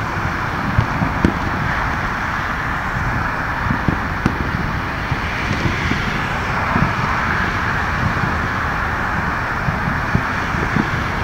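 Distant fireworks going off across a city: scattered low booms and pops at irregular intervals, over a steady wash of noise.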